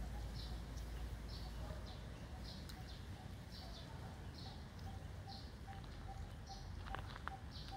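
A short high-pitched chirp repeats steadily about once a second over a low rumble, with a fainter, quicker mid-pitched peeping beneath it. A few sharp clicks come near the end.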